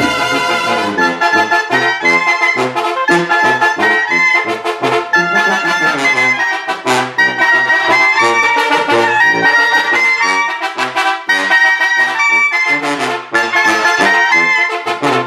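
Mexican brass band (banda) playing a dance tune: trumpets and trombones carry the melody over a bass line that steps back and forth between low notes, with rhythmic percussion hits.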